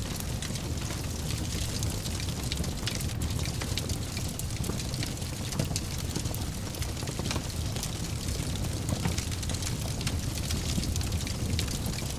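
Fire burning in a fireplace: a steady low rumble with frequent sharp crackles and pops.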